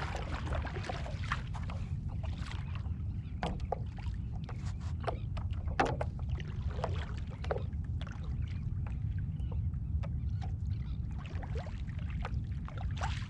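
Water splashing and lapping against a stand-up paddle board and its paddle as the board is paddled, in short irregular splashes and small knocks over a steady low rumble. The sharpest knock comes about six seconds in.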